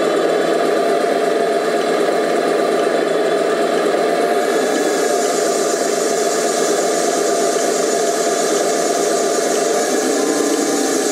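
1/14-scale RC IVECO 4x4 tipper truck running: a steady mechanical whir, getting brighter about four and a half seconds in.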